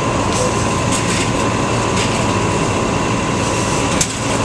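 Loud, steady din of a crowded street: a dense wash of noise with a faint steady tone running through it and a few sharp clicks, the sharpest about four seconds in.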